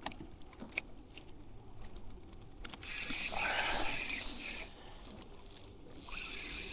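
Spinning reel being cranked by hand: small handling clicks, then from about three seconds in a gear whir that pulses with each turn of the handle.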